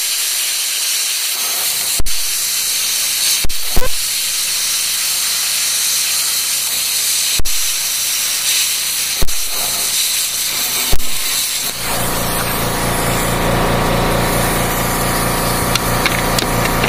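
Handheld plasma cutter blowing through the rusted steel of a Jeep frame rail: a loud, steady hiss of air and arc, broken by a handful of sharp cracks. After about twelve seconds a lower buzzing hum joins the hiss.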